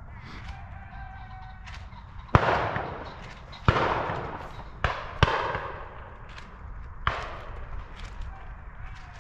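Shotguns firing at driven pheasants: five shots over about five seconds, the loudest a couple of seconds in, two close together near the middle, each trailing off in a rolling echo.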